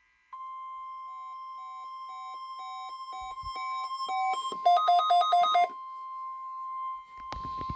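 NOAA Weather Radio warning alarm: a steady single high tone, the 1050 Hz alert tone. Over it come electronic beeps that speed up and then give about five loud, rapid beeps around the middle, and there is a sharp click near the end.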